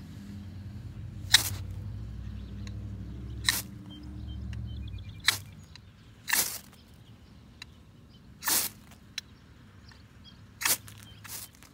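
Knife spine scraped down a ferro rod in short, sharp strokes, seven times at irregular gaps of one to two seconds, striking sparks. A low rumble of wind on the microphone fills the first few seconds.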